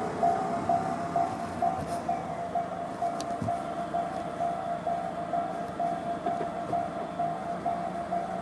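Japanese railway level-crossing alarm ringing its electronic bell in the JR standard tone, repeating about twice a second.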